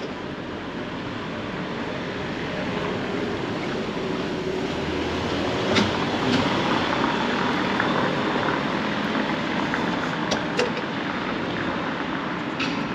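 City street noise with a vehicle going past, swelling to a peak about halfway through and easing off again, with a few sharp clicks.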